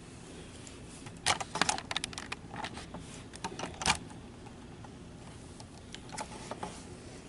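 Handling noise: a quick run of light clicks and rattles as hands work a small metal tool and the knitted piece, with a few more clicks near the end.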